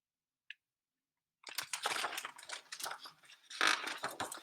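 Paper rustling and crinkling as the pages of a picture book are handled and turned, starting about a second and a half in.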